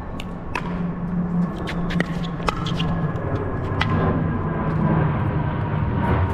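Pickleball rally: several sharp pops of paddles striking the plastic ball, irregularly spaced over the first four seconds, over a steady low rumble that grows louder toward the end.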